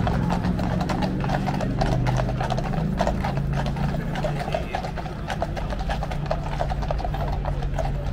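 Horses' hooves clopping on the road in a dense, uneven run of clops, over crowd chatter and a steady low hum.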